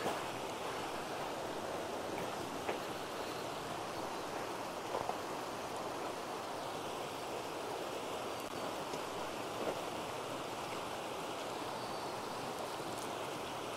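Steady rush of a flowing stream, an even hiss of water with a few faint small ticks.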